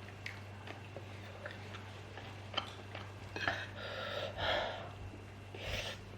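Mouth sounds of eating: quiet chewing and breathing, louder for about a second past the middle and again near the end, with a few faint clicks of a spoon on a plate over a steady low hum.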